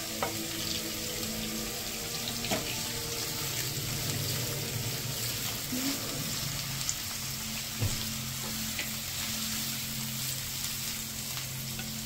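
Sliced onion and carrot strips sizzling in hot oil in an iron kadai while being stir-fried with a spatula, with a few sharp knocks of the spatula on the pan. A steady low hum runs underneath.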